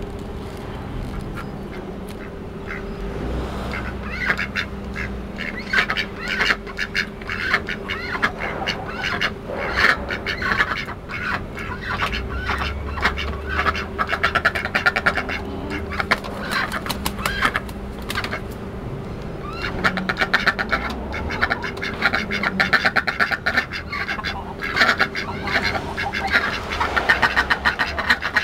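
Aigamo ducks quacking in rapid runs of short calls. The calls start a few seconds in and go on in bouts.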